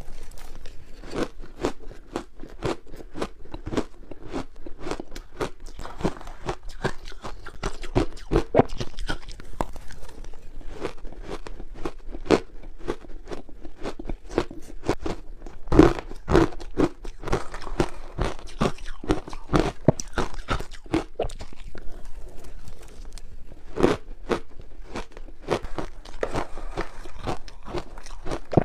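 A person biting and chewing shaved ice close to the microphone: a continuous run of crisp crunches, with a few louder bites, the loudest about halfway through.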